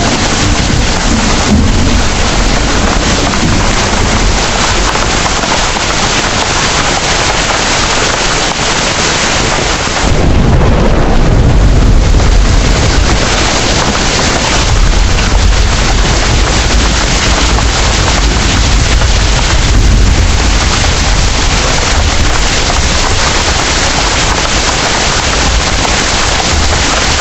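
Heavy rain pouring steadily, with a deep rumble of thunder that swells in suddenly about ten seconds in and rolls on underneath the rain.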